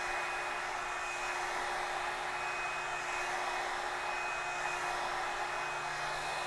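Revlon One Step hot-air brush hairdryer running steadily: an even rush of blown air with a thin high whine from its motor.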